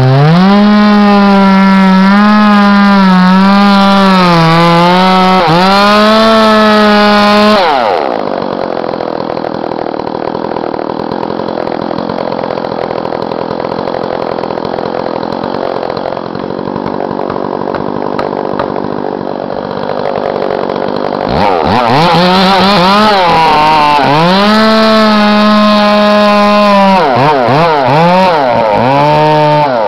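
Chainsaw cutting into a big poplar trunk at full throttle, its pitch sagging and recovering under load; about 8 seconds in it drops back to idle, and about 21 seconds in it is revved up and cutting again, with several quick throttle blips near the end.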